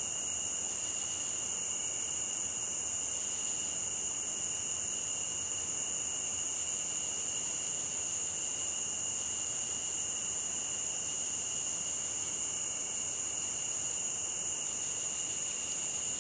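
Steady chorus of night-singing insects such as crickets: a continuous high-pitched trilling that keeps on without a break.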